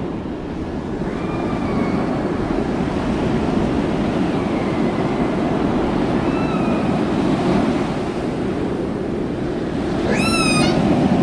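Sea water rushing and splashing along the hull of a dhoni boat under way, with wind noise. A few short, high squeals sound over it, the loudest and richest about ten seconds in.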